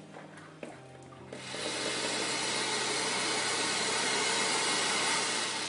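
Instant boiling-water kitchen tap running: a steady hiss of near-boiling water and steam jetting into the sink, starting about a second and a half in.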